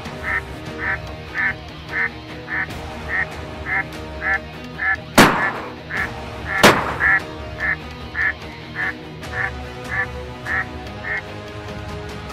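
Two shotgun shots about a second and a half apart, over a steady run of duck quacks, about two a second, that carries on through the shots.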